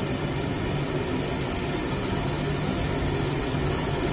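Laser engraving machine running mid-job as it marks a rifle handguard, giving a steady mechanical hum with a low drone.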